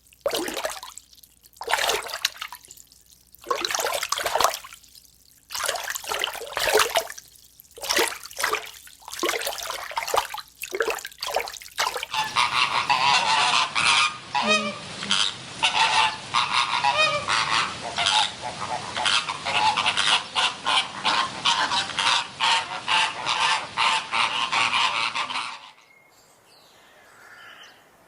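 A flock of large birds honking. First come separate calls with short gaps; then, about twelve seconds in, a dense chorus of rapid overlapping honks that stops shortly before the end.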